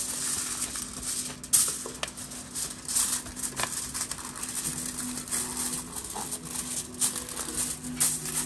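Kitchen paper towel patting and rustling on a raw pork rib slab, with scattered soft taps and rustles, over quiet background music holding low sustained notes.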